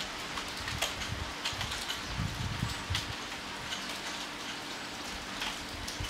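Steady rain falling, with scattered individual drops ticking sharply on nearby surfaces.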